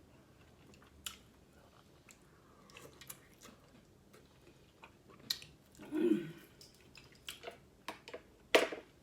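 Close-miked chewing of lobster tail meat: scattered wet mouth clicks and smacks, with the loudest smack near the end.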